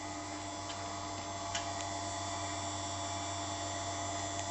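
CNC tool-and-cutter grinding machine running steadily while grinding the cutting edge of a cutting tool, a constant machine hum with a few faint light clicks.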